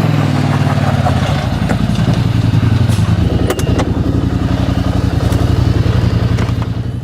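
A vehicle engine running loud and close at a steady speed, its pitch shifting a couple of times, with a few knocks and rattles over it.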